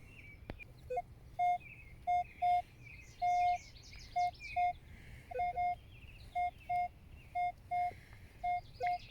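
Minelab Equinox 800 metal detector sounding short beeps, all at the same mid pitch, each time the coil swings over a buried target, coming in pairs and clusters of about two a second: a solid, repeatable signal reading 22–23. Birds chirp faintly behind.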